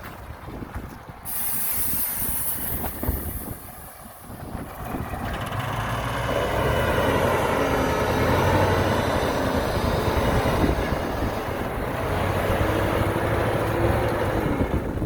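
Heavy diesel construction machine, a dump truck or bulldozer, working and getting louder from about five seconds in: a steady low engine note under a rattling, clanking mechanical noise. A brief high hiss about a second in.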